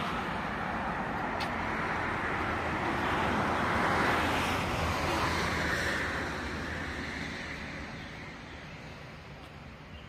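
Road traffic: the tyre and engine noise of a car passing on the road, loudest about four seconds in, then fading away.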